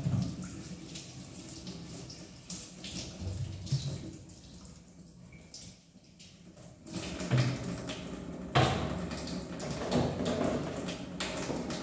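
Water running from a kitchen tap and splashing into a stainless steel sink as a plastic basket is rinsed, with knocks and clatter of kitchenware. Quieter around the middle, busier again in the second half.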